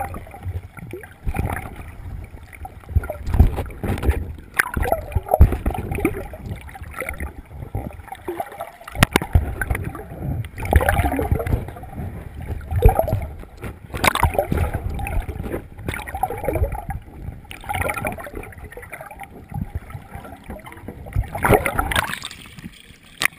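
Muffled water sloshing and gurgling over an action camera held underwater by a swimming snorkeler, with irregular surges, bubbling and a few sharp knocks.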